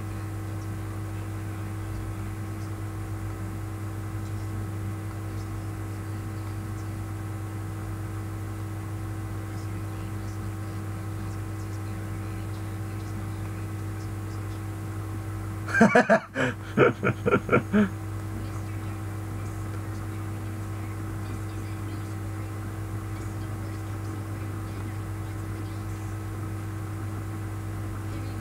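Steady electrical mains hum with a buzz, made of several fixed tones. About sixteen seconds in, a man laughs briefly in a few short bursts.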